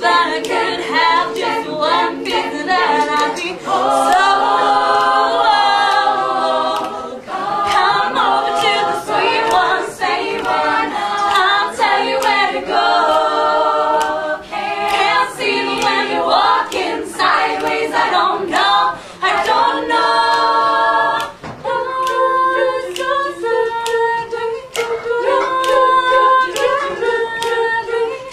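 All-female a cappella group singing: a solo voice over the group's backing harmonies. About three-quarters of the way through, the backing settles into longer held chords.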